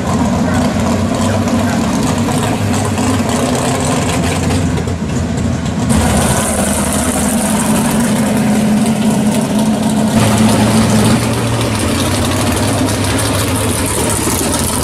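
V8 drag and street cars running at low speed and idling as they roll slowly through the pits, first a first-generation Chevrolet Camaro SS, then a Chevelle, then an S-10 pickup. The engine note changes abruptly about six and ten seconds in as one car gives way to the next.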